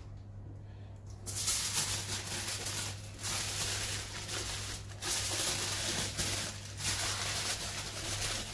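Aluminium foil crinkling and rustling as it is folded and crimped by hand around a food parcel. It starts about a second in and comes in several stretches with short pauses between them.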